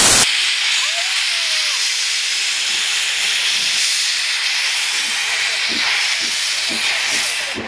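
Bagnall saddle-tank steam locomotive blowing steam from its open cylinder drain cocks as it moves off slowly: a steady loud hiss that opens with a brief, louder blast. A few faint low beats come through near the end.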